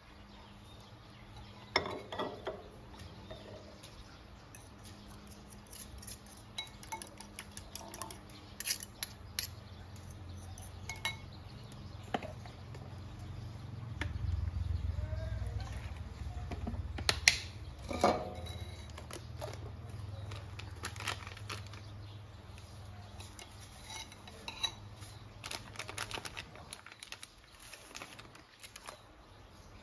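Metal spoons clinking and scraping against a ceramic bowl as seasonings are spooned in and stirred, in irregular taps. A low hum runs underneath through the middle stretch.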